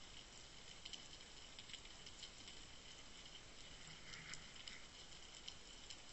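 Faint underwater ambience picked up by a Water Wolf UW1.0 camera sitting on the seabed: a low hiss with a faint steady high tone and many scattered crackling clicks.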